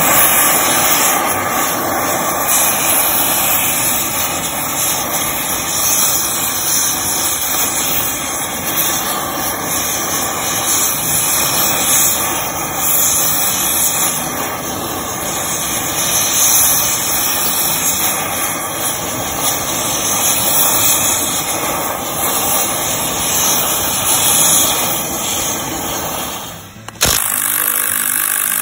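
Oxy-fuel gas torch flame hissing steadily as it heats a seized nut on the steering clutch hub of a crawler tractor. Near the end the hiss cuts off and a sharp click follows.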